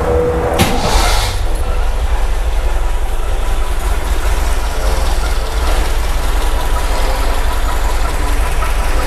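A warm MGB four-cylinder engine with twin SU carburetors cranking and catching about a second in, then idling steadily.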